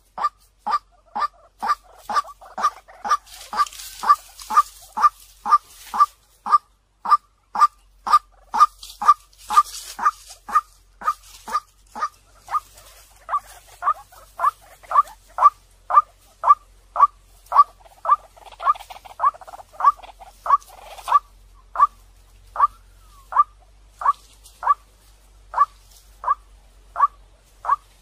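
White-breasted waterhen calling: a short, clear note repeated over and over at about two a second, easing slightly toward the end. It is a decoy waterhen's call of the kind played to lure other waterhens in.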